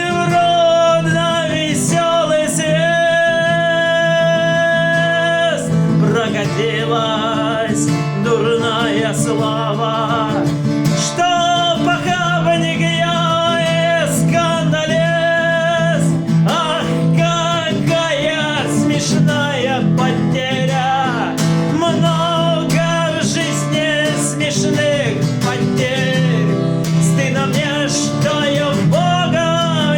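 Music: a man singing a Russian song with acoustic guitar accompaniment, holding some long notes.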